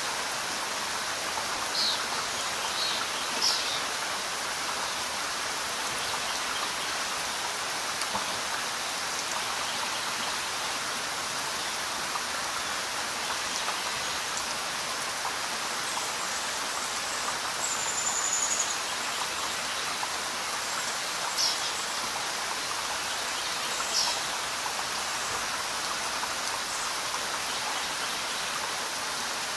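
Steady rain falling, with a few louder single drops landing close by, twice near the start and twice in the second half.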